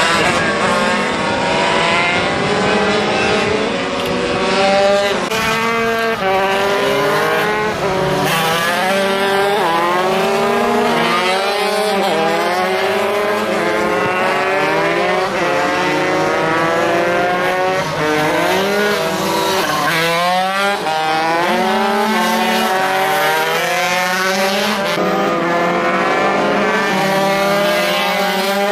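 Several MiniGP racing motorcycles at full throttle, their small high-revving engines climbing in pitch through each gear and dropping back at each shift, overlapping one another.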